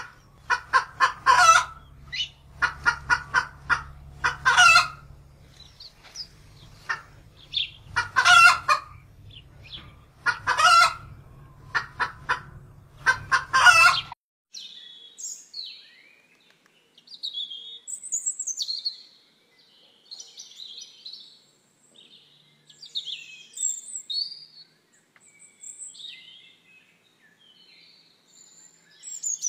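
Domestic hen calling loudly in repeated bursts, some as rapid pulsed series, over a low steady hum. About halfway through the sound changes abruptly: the hen and hum stop, and scattered high, thin chirping of small birds or chicks follows.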